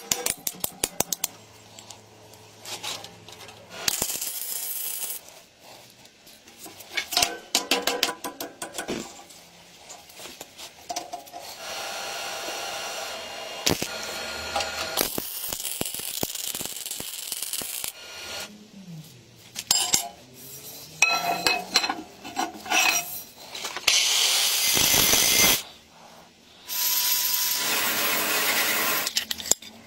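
Workshop handwork on a small homemade fan: small metal parts and tools clinking, tapping and scraping, broken by several stretches of steady noise a few seconds long.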